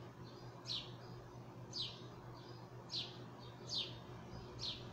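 A small bird chirping repeatedly: five short, quick falling notes about a second apart, over a faint steady low hum.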